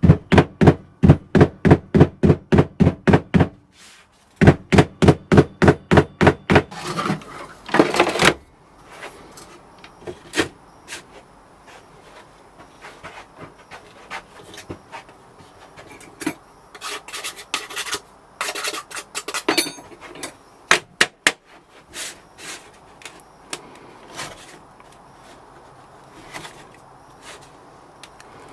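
A rammer or mallet packs foundry sand into a casting flask with rapid, even blows, about three a second, pausing briefly near four seconds in. The blows stop after about seven seconds. Then come scraping and scattered knocks as the sand is worked and levelled.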